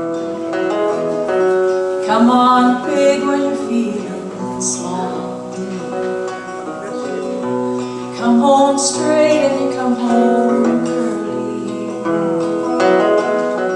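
Instrumental intro of a folk-country song: acoustic guitar strumming, with long held notes sounding over it.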